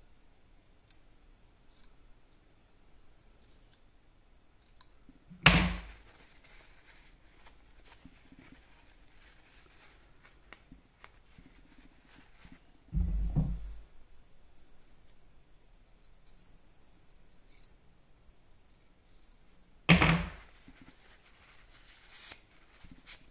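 Bench handling sounds: faint small clicks and rubs, broken by two sharp clacks about fifteen seconds apart and a dull low thump between them, as small metal parts are set down and handled during cleaning.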